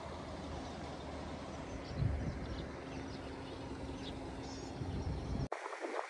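Wind buffeting the microphone with a low, gusty rumble, and small birds chirping faintly above it. Half a second before the end the sound cuts abruptly to a thinner hiss with light crackling.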